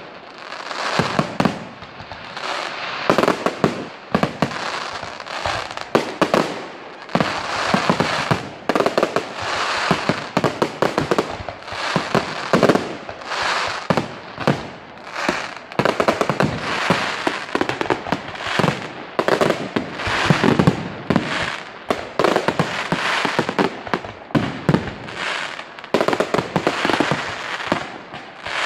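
Fireworks display: aerial shells bursting one after another in a dense run of bangs, with crackling between them.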